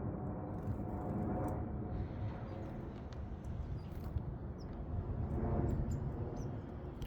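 Garden ambience: a steady low rumble with a few faint, brief bird chirps and small clicks over it.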